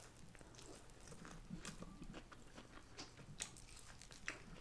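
Faint chewing and crunching of crisp food, in scattered small crackles and clicks.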